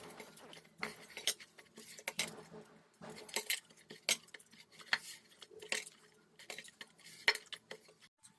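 Dough of wheat flour and grated radish being mixed and worked in a bowl, with irregular light clicks and knocks against the bowl.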